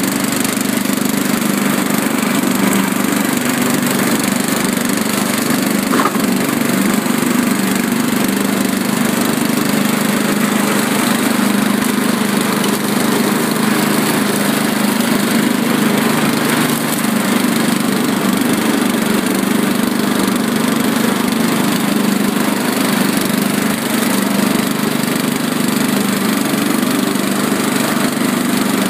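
Riding lawn mower engine running loudly and steadily, holding the same speed throughout.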